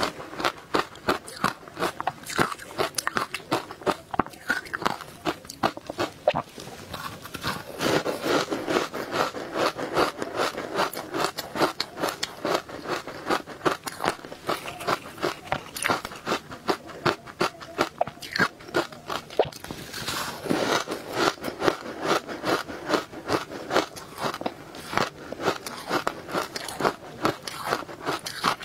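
Close-miked biting and chewing of powdery ice: a rapid, continuous run of crisp crunches, several a second, with busier spells of crunching.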